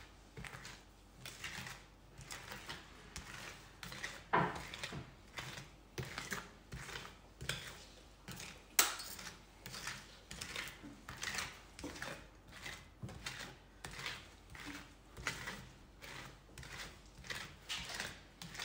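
Metal spatulas scraping and pressing a chopped ice cream mixture across a stainless-steel cold plate, in repeated short strokes about two a second. Sharper metal-on-metal clacks come about four seconds in and, loudest, near nine seconds.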